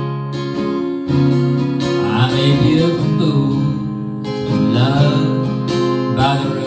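Acoustic guitar strummed and picked in a slow song, with a man's singing voice joining at moments.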